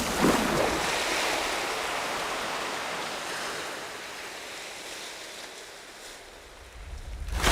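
A splash as a proboscis monkey lands in the river, followed by a rushing wash of disturbed water that slowly dies away. The water noise swells again right at the end.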